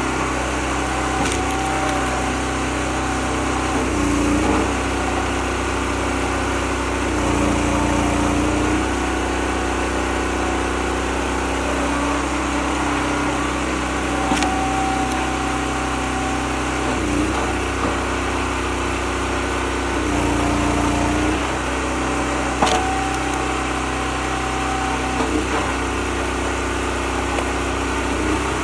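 Small gas engine of a homemade hydraulic log splitter running steadily, its note shifting as it takes load with each stroke of the ram. A thin whine comes in for a second or two three times, and a few sharp cracks sound as the oak splits.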